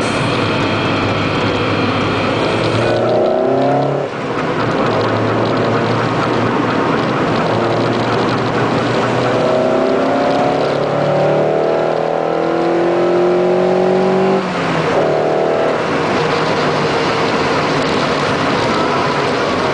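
Lotus Elise engine heard from inside the cabin, pulling hard with its note climbing in pitch. It drops back at two upshifts, one about four seconds in and one about fourteen and a half seconds in, over a steady hiss of tyres on a rain-soaked road.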